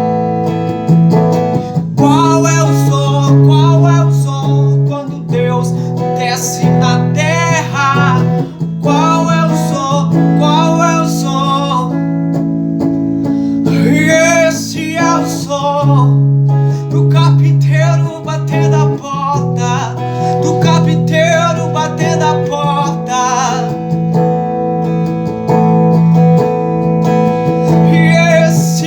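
A man singing a worship hymn over acoustic guitar chords, his long held notes wavering with a heavy vibrato.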